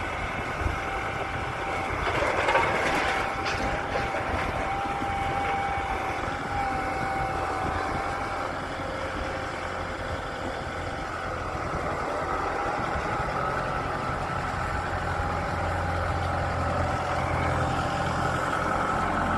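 Tractor engine running steadily with a thin whine over it in the first half. The low engine drone grows louder about two-thirds of the way in.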